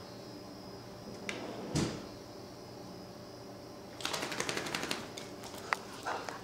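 A dog's claws clicking and scrabbling rapidly on a tile floor as it takes off running, starting about four seconds in, after a short thump near two seconds.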